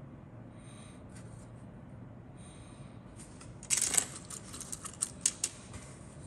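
Loose plastic parts of a 1/48 scale model aircraft kit clicking and rattling against each other as they are handled, with a louder clatter of rummaging through the pile about four seconds in, followed by a few sharp clicks.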